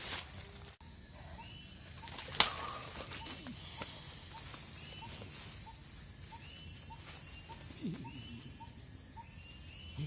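A bird calling in a steady run of short chirps, about two a second, over a high, steady insect whine that fades out about halfway through. One sharp click comes about two and a half seconds in.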